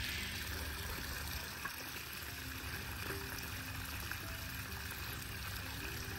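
Water running steadily from a garden hose into an above-ground pool that is being filled, with background music over it.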